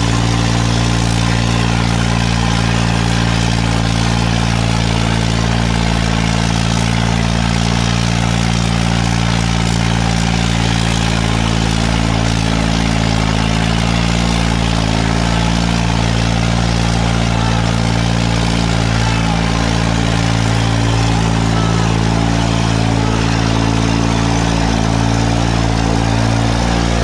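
New Holland 3630 tractor's three-cylinder diesel engine running steadily under heavy load as it drags a chained disc harrow through the soil.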